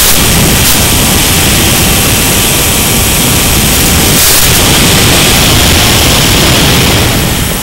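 Loud, steady rushing hiss of an FPV plane's in-flight audio: wind and electric motor noise on the Mini Sky Walker's onboard feed, mixed with radio-link static, with two brief crackles.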